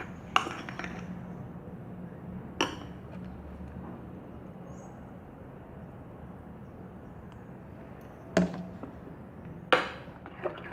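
A spoon clinking against the mixing bowl four times while thickening slime is stirred, with quiet between the clinks.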